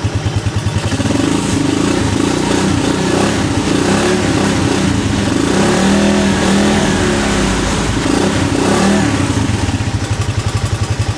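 Rusi DL 150 motorcycle engine idling, then revved up and held at raised speed for several seconds, in gear on its stand with the rear wheel spinning, before dropping back to an idle near the end.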